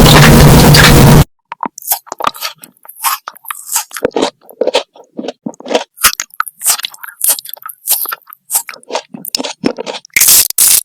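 Close-miked eating: a person biting and chewing crunchy food, irregular crisp crunches and clicks with short gaps between them. A loud steady noise cuts off abruptly about a second in, before the chewing begins.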